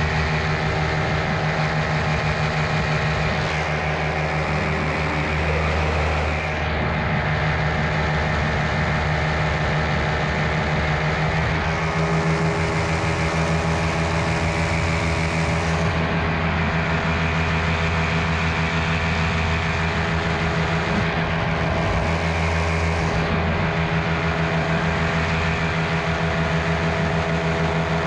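Miniplane paramotor's Top 80 two-stroke single-cylinder engine and propeller running at a steady throttle in flight, with a high hiss that swells and drops away several times.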